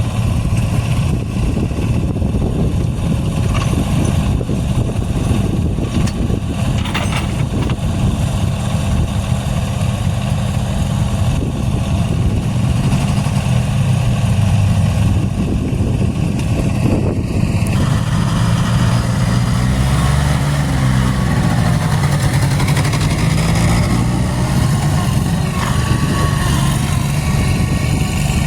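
Vehicle engines running while a four-wheeler pulls a stuck skid steer free. About 18 s in the sound changes, and an engine's pitch rises and falls for several seconds as it revs under load.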